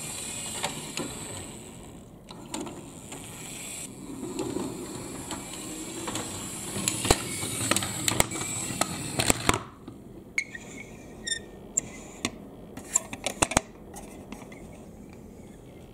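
Balls rolling and clattering down a wooden HABA marble run, a steady rolling sound with many sharp clacks; the rolling stops about two-thirds of the way through, leaving scattered light clicks.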